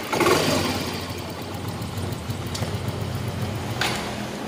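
Yamaha Mio Z scooter's 125 cc Blue Core engine: a loud burst right at the start, then running unevenly at low revs. This is the sputtering, won't-idle fault under diagnosis, the engine stumbling when throttled.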